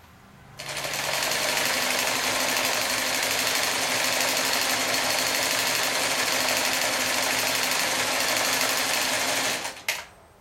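Chaika-142M electric sewing machine running steadily at speed as it sews a zigzag stitch through fabric, then stopping near the end with a short click.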